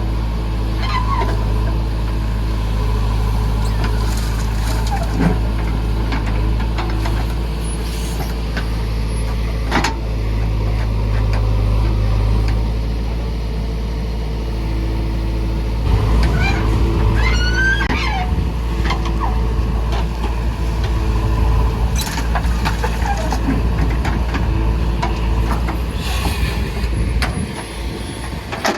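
JCB 3DX backhoe loader's diesel engine running steadily under load while it loads murrum, growing louder about halfway through. There are a few sharp knocks and some brief high squeaks.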